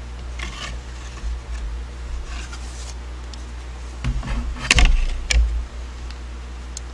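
Thin plywood cutouts sliding and being turned on a cutting mat, with soft scrapes, then a loud cluster of clicks and knocks about four to five and a half seconds in as the pieces are handled and set down.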